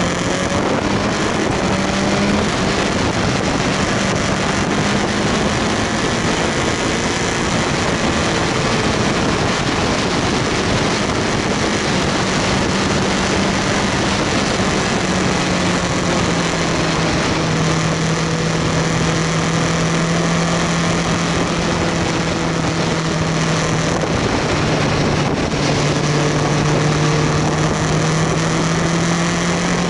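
BMW S1000R's inline-four engine pulling at road speed, its note rising and falling gently with the throttle and dipping about three-quarters of the way through before climbing again. Heavy wind and road rush covers it on the tank-mounted action camera's microphone.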